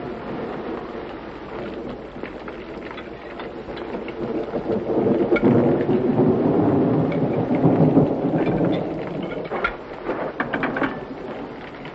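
Rain falling steadily, with a long roll of thunder that swells about four seconds in and dies away after about nine seconds, followed by a few sharp cracks near the end.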